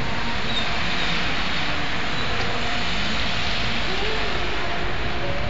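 Steady noise of a moving vehicle heard from inside it, with tyre hiss on rain-wet streets.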